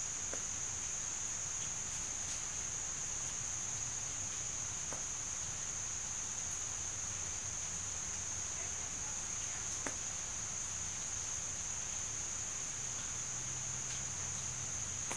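A steady high-pitched whine, constant in pitch, with a faint low hum beneath and a few faint soft clicks.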